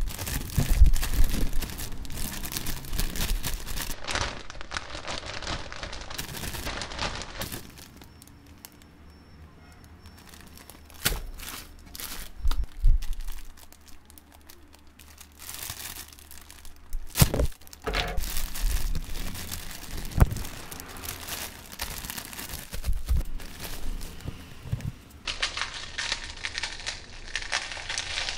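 Foil-lined potato chip bag crinkling and rustling as it is handled and opened, with hands rummaging through and crushing ridged potato chips. A continuous crackle with a few sharp cracks, and a dense burst of crackling near the end as chips are crushed in a fist.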